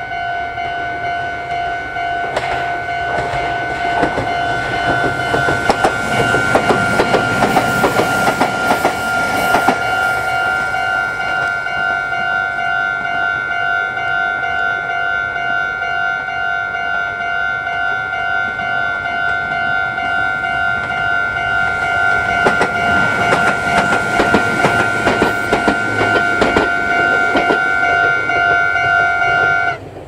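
Japanese railway level-crossing warning bell ringing steadily while Meitetsu trains pass over the crossing, wheels clattering over the rail joints: once in the first third and again near the end. The bell cuts off suddenly just before the end, the sign that the crossing is clearing.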